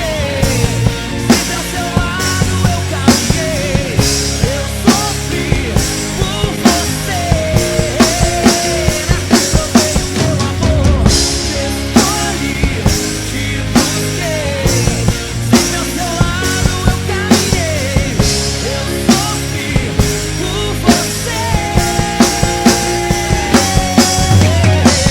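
Instrumental passage of a rock song with no vocals: a drum kit keeps a steady beat under a gliding melodic lead line.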